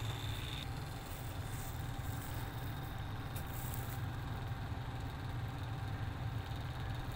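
Mother cat purring steadily as she nurses her kittens, a low continuous rumble.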